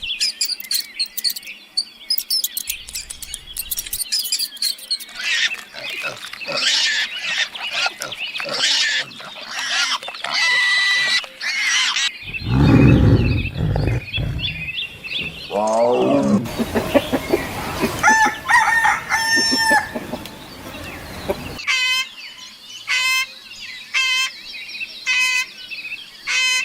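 A string of different animal calls that changes every few seconds, with chicken crowing and clucking among them. A loud, low-pitched call comes about halfway through, and short calls repeat at a steady pace near the end.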